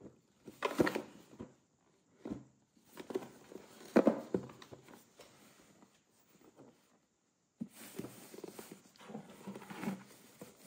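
A rigid cardboard gift box being handled by hand: it is turned, tapped and set down with a few soft knocks, the loudest about four seconds in. Near the end a ribbon rustles as it is pulled loose.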